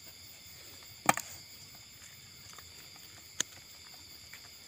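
Two sharp clicks, a loud one about a second in and a softer one past three seconds, over a faint steady high-pitched background hiss.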